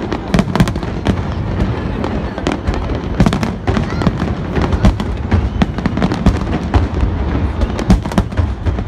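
Fireworks display: aerial shells bursting in a rapid barrage, many sharp bangs and deep booms close together, several a second.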